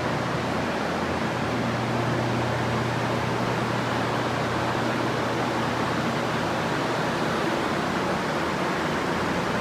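Dozens of air-mover drying fans and a large dehumidifier running together: a steady, very noisy rush of air over a constant low hum, the sound of structural drying in a flood-soaked building.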